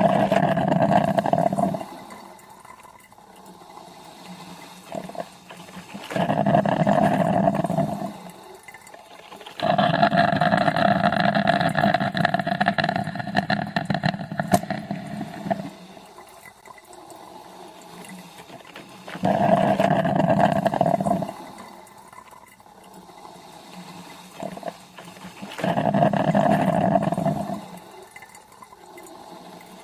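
Coffee maker brewing: loud bursts of gurgling and sputtering every several seconds, most lasting about two seconds and one about six seconds, with a quieter hiss in between.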